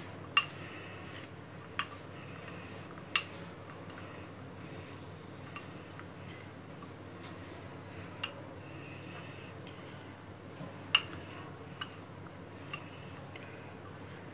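A metal spoon clinks against a glass bowl now and then while stirring soaked peanuts in a wet besan and spice coating, with a faint steady hum underneath.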